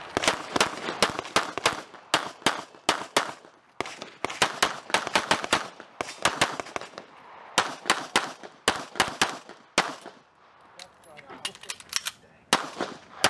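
CZ Shadow 2 9mm pistol firing a competition stage: rapid sharp shots, mostly in quick pairs, in strings with short breaks between them and a longer lull near the end.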